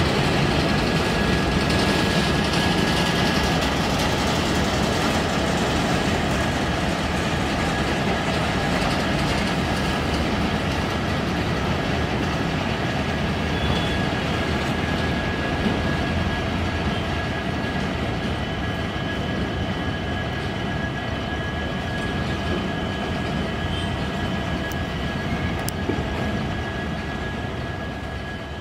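Freight train of enclosed car-carrier wagons rolling past: a steady rumble and clatter of wheels on the rails, with a thin steady high tone running through it. It slowly fades near the end.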